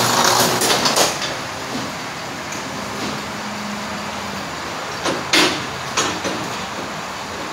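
Repair-shop background noise. A loud hiss stops about a second in, and near the end come two sharp knocks less than a second apart as a worker handles a wooden block and tools by the van.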